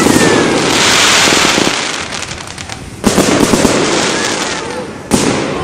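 Fireworks going off: a loud burst opens into a dense crackling shower that fades over a few seconds, then two more sharp bangs come about three and five seconds in, each with crackle after it.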